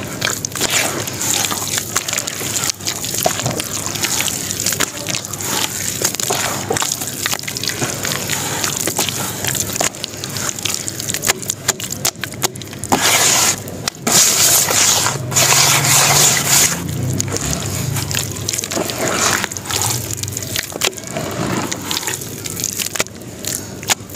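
Hands squishing and sloshing a wet sand-and-cement slurry in a basin of water: a thick, wet squelching and splashing with many small crackles, louder bursts of sloshing a little past halfway.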